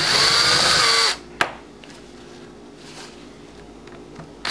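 Electric drill spinning a bit into a metal snap on a leather vest for about a second, then stopping, to break the snap's metal apart and loosen it for removal. A single sharp click follows, and the drill starts up again right at the end.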